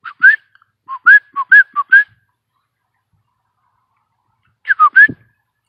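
A person's short, rising whistle-chirps, made with the lips to catch an animal's attention. They come in three groups, with a run of about six between one and two seconds in and a last few near the end.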